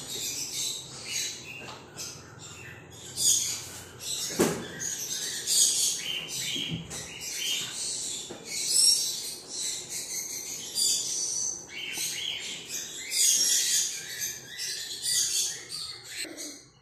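Lovebirds chirping and screeching in high, rapid runs with hardly a pause, with a single knock about four and a half seconds in.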